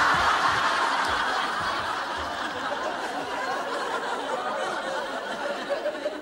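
Studio audience laughing at a punchline: a loud burst that slowly dies away over several seconds.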